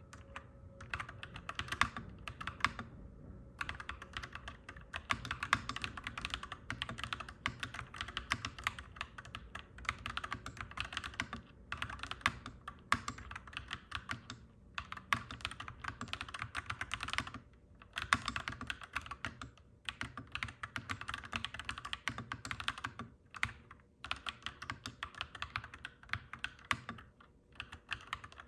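Clacky mechanical keyboard being typed on in quick, dense runs of keystrokes, broken by several brief pauses. A faint steady low hum sits underneath.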